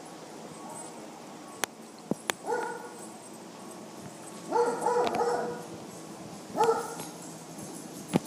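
Small dog barking: a single bark about two and a half seconds in, a quick run of barks around five seconds, and another bark near the end. A few sharp clicks come before the first bark.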